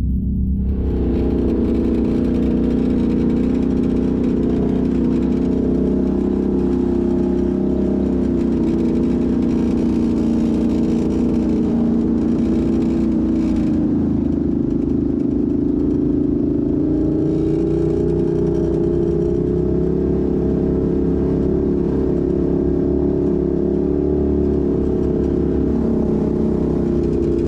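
Off-road vehicle engine running at a fairly steady speed, its pitch drifting only slightly, over a constant low rumble.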